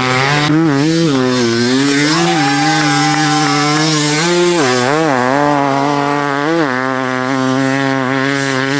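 Enduro motorcycle engine revving hard on sand, its pitch dropping and climbing again several times as the rider works the throttle and shifts.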